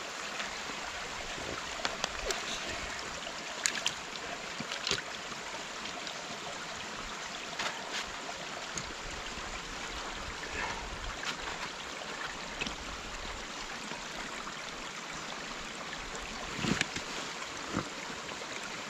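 Steady running water, with short splashes and squelches every few seconds as gloved hands work in the shallow water and mud at the edge of a beaver dam; the loudest splashes come near the end.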